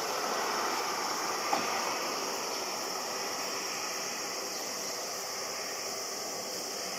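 Twin turbofan engines of an FDA Embraer E-Jet climbing away overhead after takeoff: a steady, even roar that slowly fades, with a faint tick about a second and a half in.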